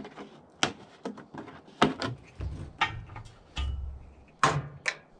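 Irregular sharp clicks and light knocks, about seven or eight in all, from handling the plastic outlet fitting and tube of a sawmill's lubrication water tank while clearing a clog.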